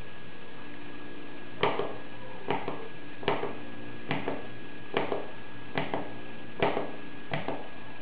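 Pushbuttons on a JUUKO industrial crane remote control transmitter clicking, each one pressed and released, eight times at an even pace of a little under once a second, as part of the sequence for pairing it to its receiver. A steady faint hum runs underneath.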